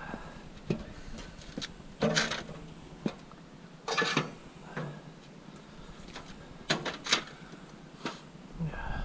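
Scrap metal parts knocking and clattering as they are handled, in several separate knocks, the loudest about two, four and seven seconds in.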